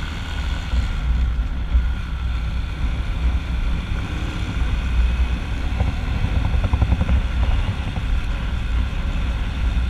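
Hozaka 150 GNX 150 cc motorcycle running at steady cruising speed, its engine heard under heavy wind buffeting on the microphone.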